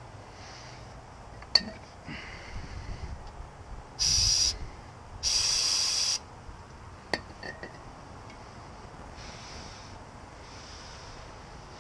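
Aerosol spray can of cleaner fired in two short bursts of steady hiss about four seconds in, the second a little longer, cleaning the hub and spindle area. A couple of sharp clicks and some rustling come before and after.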